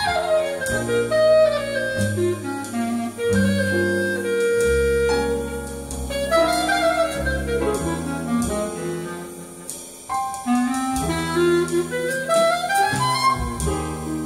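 Recorded jazz playing through a stereo system's loudspeakers in the room and picked up by a phone: a wind-instrument melody with sliding, bending notes over a line of low bass notes.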